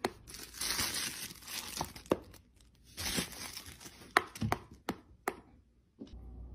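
A dog chewing on a tennis ball and a plush toy: crinkling and crunching with sharp clicks of the teeth, several times over the first five seconds. A steady low hum takes over near the end.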